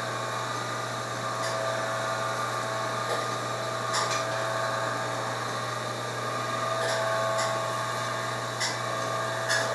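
A steady machine hum and whine, with several short sharp knocks and clatters as a wooden-framed tray is slid onto the racks of a baking oven.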